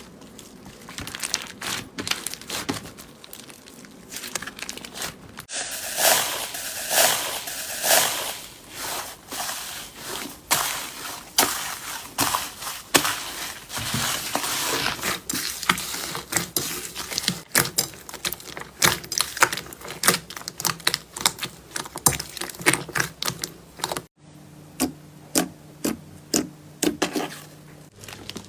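Slime being squeezed and worked by hand, making rapid crackling and popping clicks in several short clips one after another.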